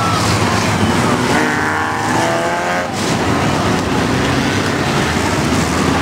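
A pack of enduro stock cars running at racing speed, engines and tyres making a loud, steady noise. A little after a second in, one engine's note climbs for about a second and a half.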